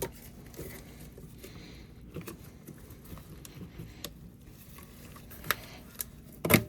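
Scattered light clicks and knocks of parts and tools being handled while the battery tray is worked loose in a car's engine bay, with two sharper knocks near the end, over a faint steady hum.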